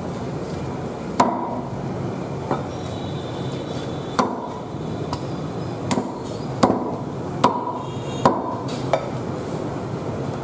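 Heavy cleaver chopping softshell turtle pieces on a thick round wooden chopping block: about eight hard, irregularly spaced chops, some with a brief metallic ring.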